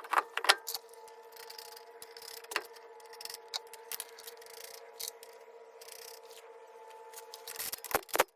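Car wheel being refitted onto the hub and its lug nuts handled: scattered metallic clicks and knocks over a faint steady whine, with a quick run of sharper clicks near the end.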